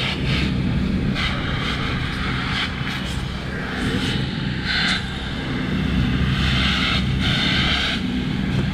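Steady low drone of engines running, most likely the fire apparatus at the scene, with short rushes of hiss coming and going over it.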